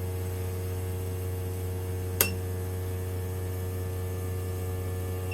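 Fuel injector flow-test bench running with a steady, even hum while the injectors spray. A single sharp metallic clink sounds about two seconds in, and the hum cuts off at the very end.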